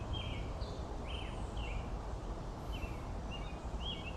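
Birds singing outdoors: short, high chirps, a few a second, with a pause about halfway through, over a steady low background hum.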